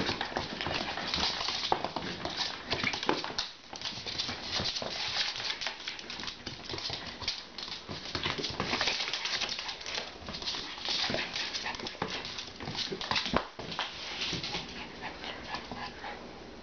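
Small pug–Pomeranian mix dog making excited play noises while lunging and tugging at an oven mitt, with many short scuffs and clicks.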